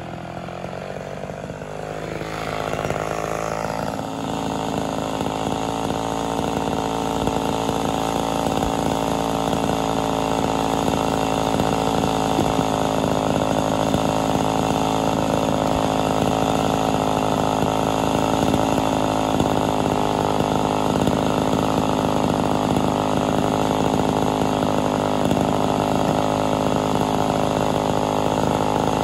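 Ported Homelite Super XL Auto chainsaw's two-stroke engine idling steadily after a cut, growing louder over the first few seconds and then holding an even note.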